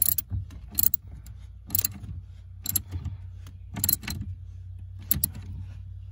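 Hand ratchet clicking in five short bursts, about one a second, as its socket runs down the bolt on the steering shaft's universal joint, snugging it before final torque. A steady low hum runs underneath.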